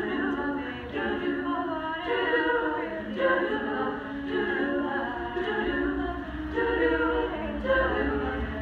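A cappella group of mostly women's voices singing together in harmony, coming in all at once at the start.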